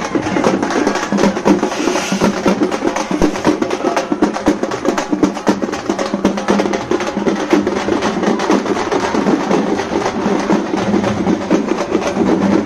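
Fast, continuous beating of frame drums (dappu) struck with sticks, a dense run of sharp strokes with no break.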